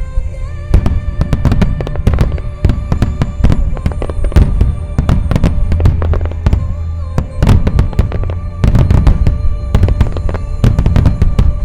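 Wide starmine fireworks: many shells firing and bursting in rapid succession, dense overlapping bangs with deep booming, briefly thinning twice before building again. Music plays underneath.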